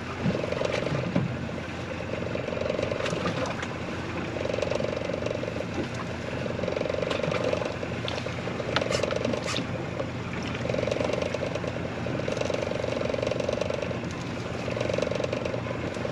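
Fishing reel winding in line, its gears whirring in repeated spells of about a second and a half with short pauses between.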